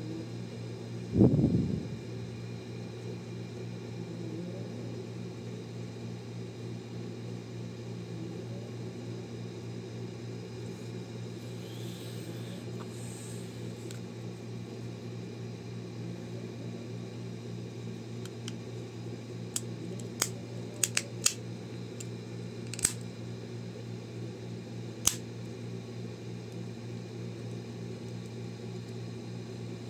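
Steady hum in the background, with a low thump about a second in and a brief rustle around the middle. Later come a handful of sharp clicks, most of them bunched together, as the plastic halves of a Honda key fob case are handled and pressed together.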